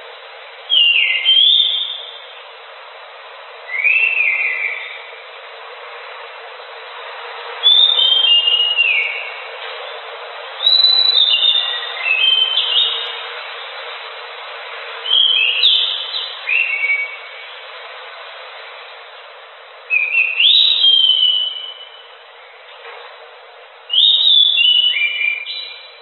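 Anis macan thrush singing vigorously: seven short phrases of high whistled notes, some sliding down in pitch, coming about every three to four seconds over a steady hiss.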